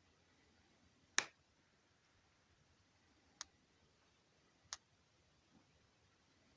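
Three sharp, brief clicks over a very quiet background, the first, about a second in, the loudest; the other two follow roughly two and three and a half seconds later.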